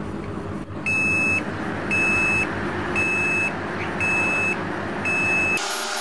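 Desktop motherboard's BIOS speaker sounding a repeating beep code: five high beeps, each about half a second long, about one a second, over the steady whir of the CPU cooler and power-supply fans. Repeating long beeps at power-on are the usual warning that the board cannot detect a working RAM stick.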